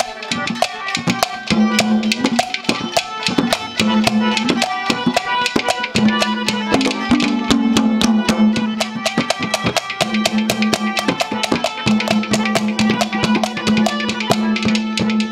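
Instrumental break in a live Haryanvi ragni: a hand drum plays a fast, driving rhythm of several strokes a second over a held, sustained melody line.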